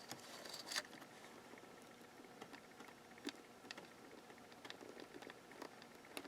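Faint handling noises at a workbench: a scatter of small, quiet clicks and taps, the sharpest a little under a second in, over near-silent room tone.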